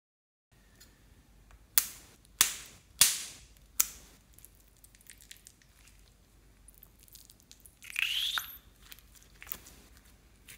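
Clear slime popping and squelching under a pressed mesh stress ball: four sharp snapping pops in the first four seconds, then a wet squelch with a rising squeak about eight seconds in.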